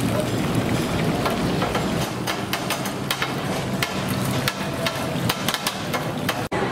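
Metal ladle clanking and scraping against a steel wok while fried rice is stir-fried: rapid, irregular clinks from about two seconds in, over a steady low hum.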